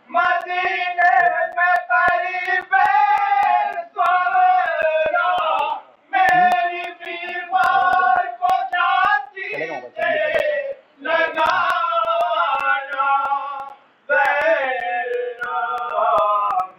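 Men's voices chanting an unaccompanied mourning lament (noha), with long held melodic phrases broken by short pauses for breath.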